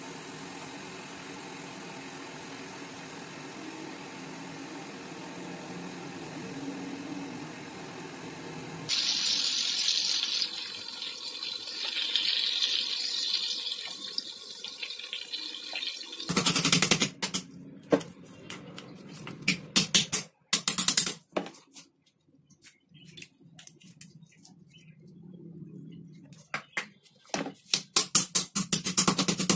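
A steady hiss at first, then from about nine seconds in a louder sizzle of crab pieces frying in hot oil. From about sixteen seconds a knife chops through crab shell on a wooden cutting board in quick runs of sharp strikes.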